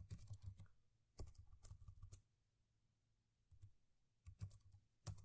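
Faint computer keyboard typing: short runs of key clicks with pauses between them, a burst at the start, another about one to two seconds in, and a few scattered clicks near the end.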